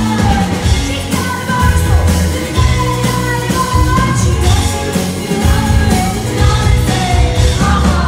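Live rock-pop song: a woman singing into a microphone over her strummed acoustic guitar, with a drummer and band playing behind her, heard from the audience.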